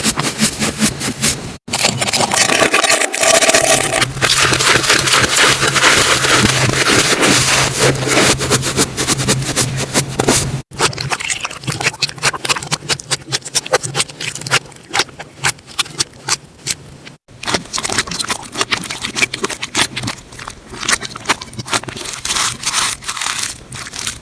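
Slime being squeezed and pressed by hand, a dense run of small crackling clicks and pops. It breaks off briefly three times as one clip cuts to the next.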